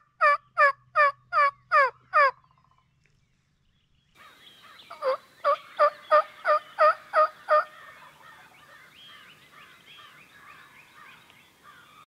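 Hen turkey yelps made on a mouth call: a run of about eight evenly spaced yelps that stops a little over two seconds in. After a pause, a second, fainter run of about eight yelps about five seconds in, trailing off into softer, quieter turkey calling.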